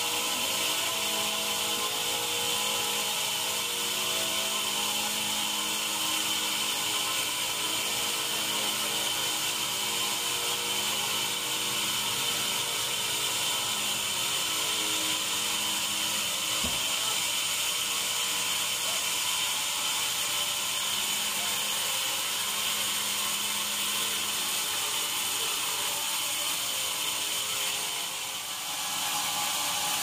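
Large band sawmill cutting lengthwise through a mahogany log: a steady high whine from the blade in the wood, with one short low thump a little past halfway and a brief drop in level near the end.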